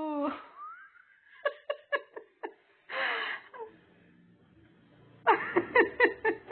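A woman laughing in short breathy bursts. A held, wailing voice note trails off at the start, and a quick run of laughs comes near the end.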